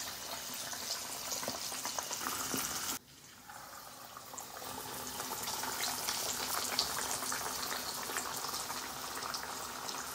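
Floured fish frying in hot oil in an aluminium pot: a steady sizzle with a scatter of small crackles. It cuts out abruptly about three seconds in and comes back within a second.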